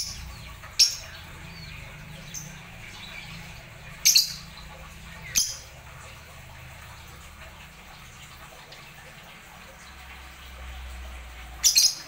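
Caged lovebirds giving short, high-pitched chirps: one about a second in, a quick pair around four seconds, another just after, and a quick pair near the end.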